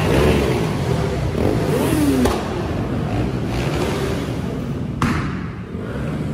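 Car engines running, with one revving and dropping back in pitch about two seconds in. A sharp knock comes just after it and another about five seconds in.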